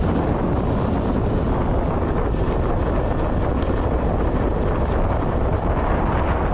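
Steady rush of wind buffeting the microphone over a low vehicle rumble, the sound of riding along a road.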